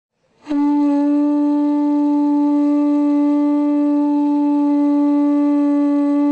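A wind instrument blown on one long, steady note, starting suddenly about half a second in and held without a break or change in pitch.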